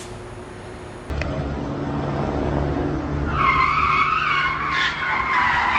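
Car drifting: engine running and tires squealing. The engine cuts in abruptly about a second in, and the tire squeal rises over it from about three seconds in and holds, wavering in pitch.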